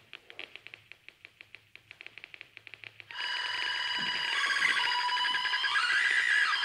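Electronic sound from the Exo.Rosie wearable electronic instrument, driven by the performer's hand movements. A fast, soft ticking pulse runs for about three seconds. Then a loud, dense cluster of steady high electronic tones comes in suddenly, like a ringing alarm, and near the end some pitches slide up and down.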